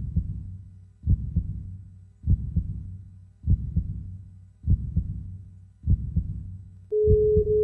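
Slow heartbeat sound effect: deep double thumps about once a second, evenly spaced. Near the end a steady single-pitch phone tone starts as a call is dialled.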